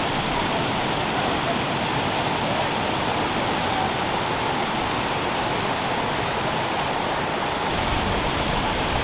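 Waterfall pouring: a steady, dense rush of falling water. About eight seconds in, the rush turns fuller and deeper.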